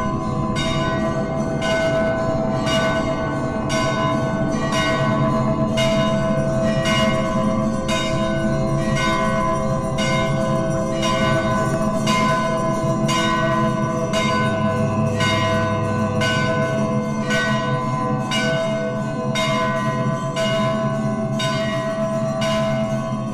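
Bells struck in an even rhythm, about twice a second, over a continuous ringing of several held tones.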